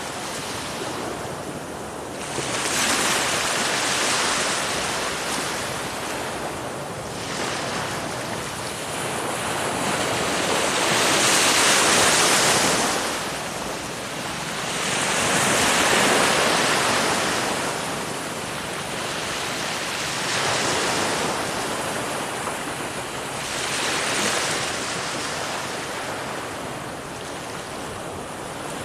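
Ocean surf: waves breaking and washing in, each one a rushing swell of noise that rises and falls every few seconds, strongest near the middle.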